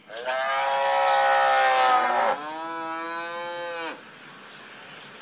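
Cow mooing twice: a long, loud moo, then a second, shorter and quieter moo that rises in pitch as it begins.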